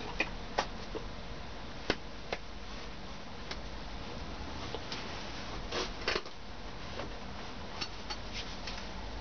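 Scattered sharp clicks and brief rustles from hands and jacket sleeves moving in quick gestures, a dozen or so at irregular times over a steady background hiss and hum.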